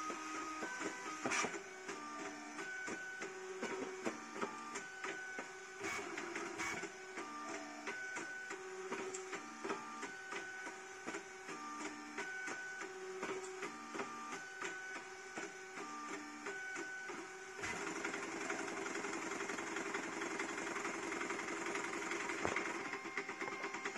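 CoreXY 3D printer printing at high speed and acceleration: its stepper motors sing in short steady notes that jump in pitch with each quick move, in a pattern that repeats every couple of seconds, with light clicks at the direction changes. About eighteen seconds in, the sound turns into a denser, continuous buzz.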